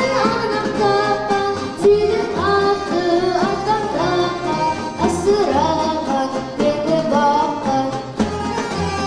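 A boy singing a folk song into a microphone, accompanied by a folk instrument orchestra of plucked lutes and double bass.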